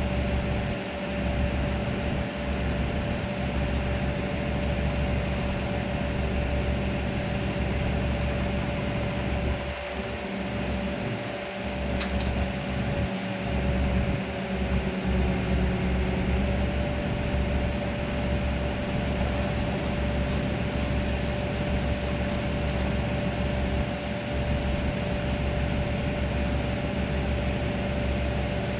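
Excavator's diesel engine and hydraulics running steadily under load, with a steady whine that steps up slightly in pitch a little past halfway.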